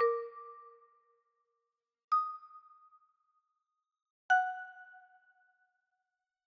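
Electronic chime sound effects: three single struck tones about two seconds apart, each ringing out and fading within about a second.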